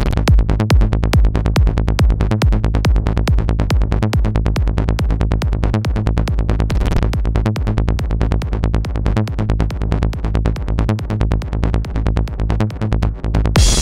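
Electronic techno loop played from a phone beat-making app: a fast, even electronic beat over a steady deep bass line, with a short noise swell about seven seconds in.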